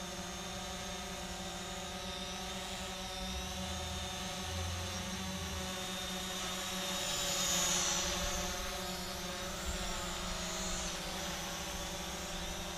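Visuo mini quadcopter drone hovering and climbing after an auto takeoff. Its motors and propellers make a steady multi-toned whine whose higher tones waver in pitch as the motor speeds change, and it grows louder about halfway through.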